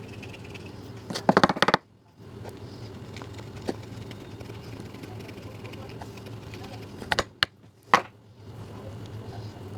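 Two bursts of rapid sharp clicking over a steady low hum, one about a second in and one near the end, each cutting off abruptly.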